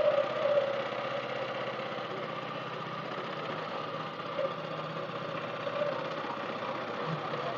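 A small boat's motor running steadily, a continuous fast chugging drone that pushes the canoe.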